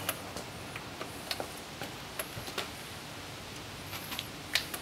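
Scattered light clicks and taps of hand-handled parts in a car engine bay, irregular, with the sharpest click near the end, over a low steady background.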